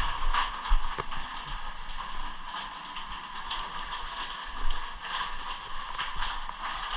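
Steady rush of water, with scattered knocks and thumps.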